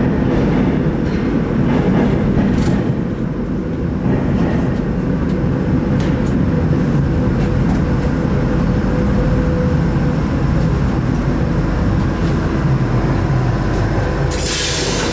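Metro train running on the rails: a steady rumble of the wheels with a faint, even motor hum. A brief hiss cuts in about a second before the end.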